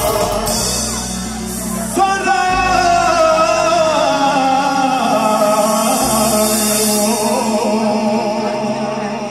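A man singing live into a microphone, long held notes with a wide vibrato, over amplified band accompaniment with sustained bass notes that change every few seconds.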